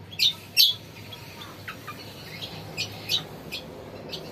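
Cucak kombo songbird calling in its cage: two loud, sharp chirps in the first second, then a run of shorter, weaker chirps spaced a few tenths of a second apart.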